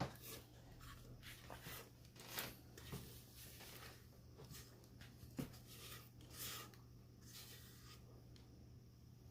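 Near silence: faint scattered scraping and rustling handling sounds, with one sharper tap about five and a half seconds in, over a low steady hum.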